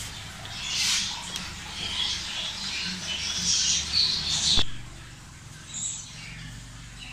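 Small birds chirping in the background: quick, irregular high chirps. A sharp click about two thirds of the way in cuts them off, and only a few faint chirps follow.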